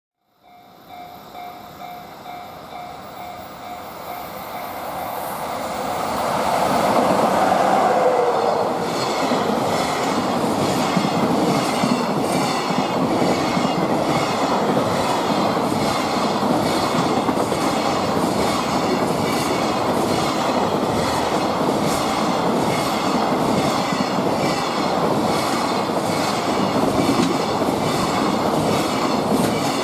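EF66 electric locomotive hauling a freight train past, growing louder over the first several seconds as it approaches. Then a steady rush of wagons rolling by with a regular clickety-clack of wheels over the rail joints.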